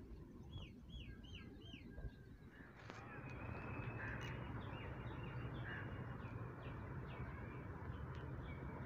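Birds calling: a quick run of four short calls about a second in, then scattered calls. From about three seconds in, a steady low hum comes up under them: the diesel engine of a GEU-20 locomotive drawing an express train toward the station.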